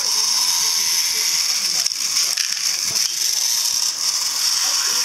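Battery-powered TOMY Thomas the Tank Engine toy locomotive's small motor and plastic gears whirring steadily in a high-pitched whine as it climbs a plastic track ramp.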